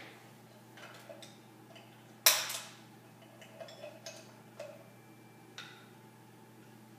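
Sparse clicks and knocks of equipment being handled at floor level, with one sharper knock a little over two seconds in, over a faint steady electrical hum.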